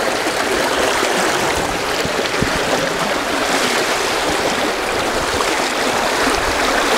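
Fast, high-flow spring creek water rushing steadily, churning around a wader's legs and a D-net held against the creek bed in the current.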